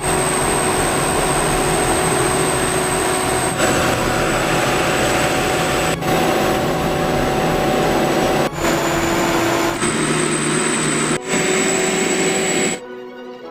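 Rice combine harvester running steadily, a dense mechanical noise with a thin high whine over it, in several short clips cut together. Near the end the machine sound cuts off and soft music begins.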